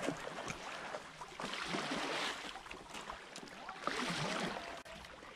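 Stand-up paddle blade pulling through shallow canal water, two strokes about two and a half seconds apart, each a swish of water lasting about a second, over a faint trickle of water past the board.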